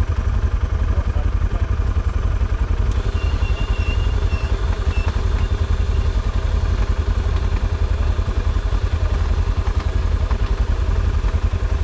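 ATV engine idling steadily with a fast, even low pulsing; a faint high whine comes in briefly about three to five seconds in.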